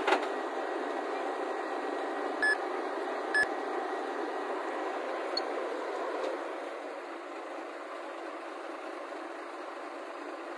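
Steady engine and running noise from a heavy flatbed truck carrying a tracked excavator. Two short high beeps sound about a second apart a few seconds in, and the noise drops a little past the middle.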